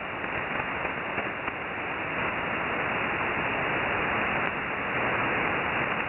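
Shortwave receiver static: steady, narrow-band hiss from an SSB receiver tuned to an empty 20-metre frequency (14.165 MHz), with no signal on it. It grows slightly louder over the first two seconds.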